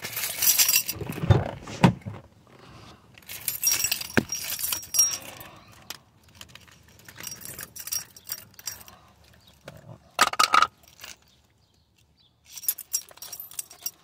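Clinking, rattling and rustling from a phone being handled inside a car, in several bursts, with the loudest short clatter about ten seconds in.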